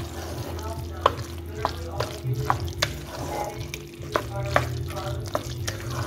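Wooden spoon stirring thick pasta in an aluminium pot, with repeated irregular clacks of the spoon against the pot's side over a steady low hum.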